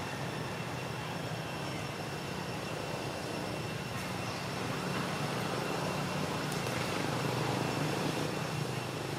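Steady outdoor background noise: an even low hum with a thin, constant high tone over it, unchanging throughout.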